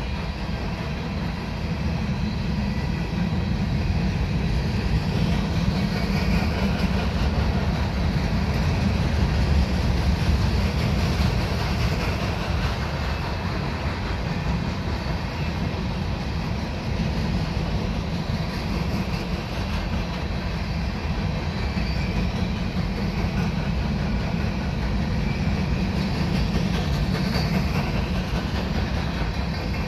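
Empty coal hopper cars of a CSX freight train rolling steadily past on the track, a continuous low wheel-on-rail noise.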